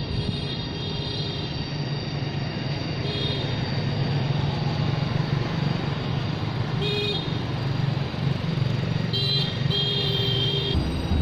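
Motorcycles riding past on a road with their engines running, and several short horn beeps sounding over the traffic; the last beep near the end is about a second long.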